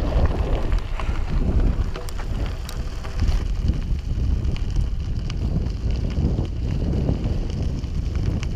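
Wind rumbling on the microphone of a camera riding along on a moving bicycle, with a few scattered light clicks over the steady rush.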